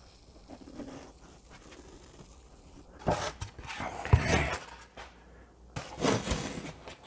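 Styrofoam boxes being handled: scraping and rubbing as one box is set on top of the other, with a dull thump about four seconds in. Near the end comes a short rip of painter's tape being pulled off the roll.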